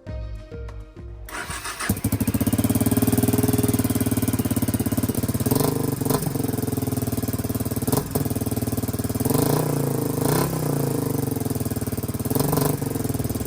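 Suzuki DR250 SHC's single-cylinder four-stroke engine, fitted with a SuperTrapp disc muffler, running with several quick blips of the throttle. It cuts in abruptly after about a second of music.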